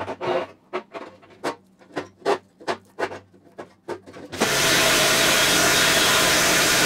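Short scrapes and clicks, two or three a second, as hand pliers bend the flange of a new steel sill panel. About four seconds in, a pneumatic planishing hammer starts up with a loud, steady noise as the panel edge is fed through it.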